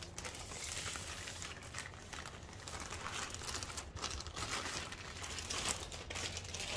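Clear plastic bag crinkling and rustling as hands crumple and fold it, in irregular crackles.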